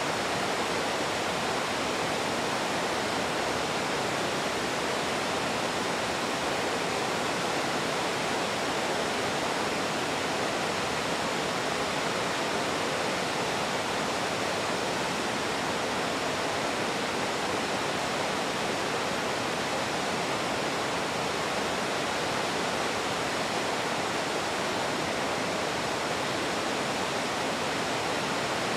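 Middle McCloud Falls, a large waterfall, pouring water in a steady, unbroken rush.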